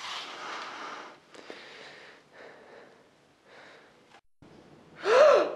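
A person's soft breathy noises in several short stretches, then a short voiced sound whose pitch rises and falls, about five seconds in.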